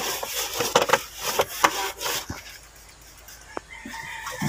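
A wet cloth wiping and rubbing across the sheet-metal underside of a car hood, in quick scrubbing strokes that die down after about two seconds. Near the end there is a short, thin call in the background.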